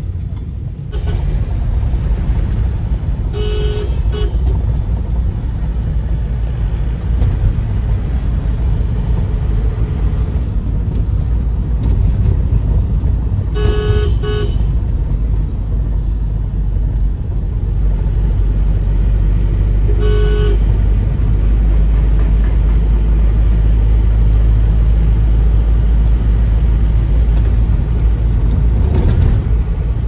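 Steady low rumble of a vehicle travelling on a road, with a vehicle horn tooting three times: a few seconds in, a quick double toot about halfway through, and once more about two-thirds of the way through.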